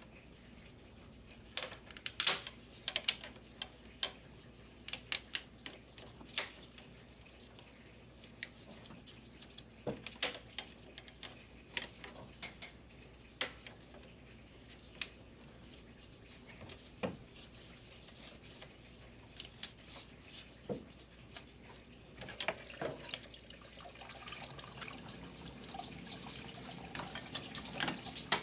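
Scattered clicks, taps and light knocks of rubber hoses, plastic lines and connectors being handled and pushed aside in a van's engine bay. A steady hiss comes in about three quarters of the way through and keeps going.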